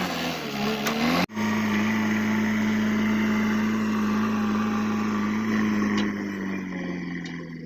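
Diesel engine of a JCB 3DX backhoe loader running under working load; its note dips and recovers in the first second, then holds steady and sags slightly near the end. There is an abrupt break about a second in.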